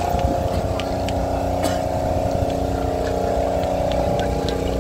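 An engine running steadily with an even drone, with scattered light clicks and one sharper knock about a second and a half in.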